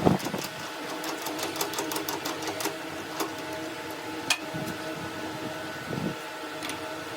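A workshop machine runs with a steady hum. Over it come a knock at the start, a quick run of sharp metallic clicks in the first few seconds, and single knocks about four and six seconds in.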